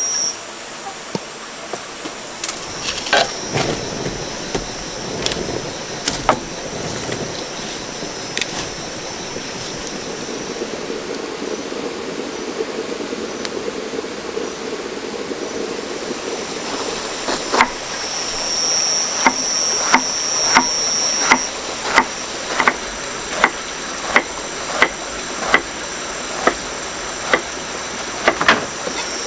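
Knife chopping vegetables on a wooden cutting board. From a little past halfway the strokes come in a steady rhythm, about three every two seconds. A high steady whine in the background comes and goes.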